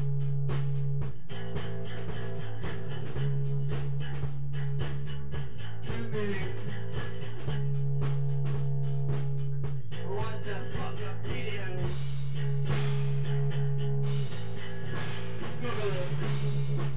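Live instrumental psychedelic rock jam: a loud held low drone that moves between two notes every couple of seconds, with guitar lines and sliding notes over a fast pulsing rhythm.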